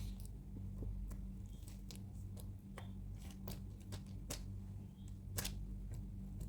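Irregular light clicks and taps, roughly two a second, with a sharper one about five seconds in, over a steady low hum.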